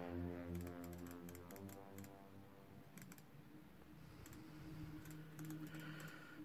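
Faint, scattered clicks of computer input, keyboard and mouse, over soft sustained synth music that fades away in the first couple of seconds and lingers faintly.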